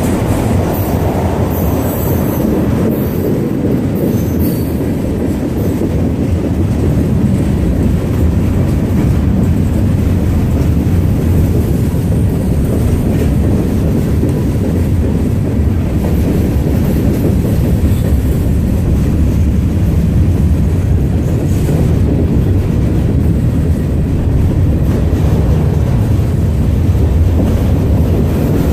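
A train rolling past: a steady, heavy rumble of wheels on the rails, with brief high-pitched wheel squeals a few seconds in.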